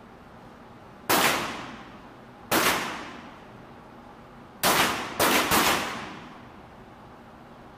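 Pistol shots in an indoor firing range, five in all: three spaced a second or two apart, then two in quick succession, each followed by a long echo.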